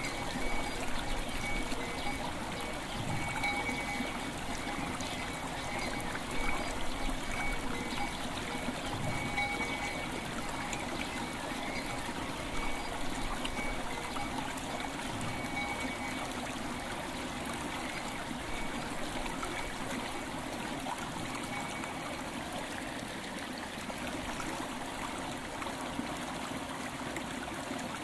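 River water running steadily over stones, a continuous trickling rush, with faint ringing bell tones sounding now and then and fading out a few seconds before the end.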